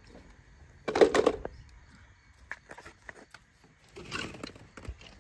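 Plastic toys being handled over a pit of hollow plastic balls: a short loud plastic clatter about a second in, scattered light clicks, and a brief rustle of the balls being jostled near the end.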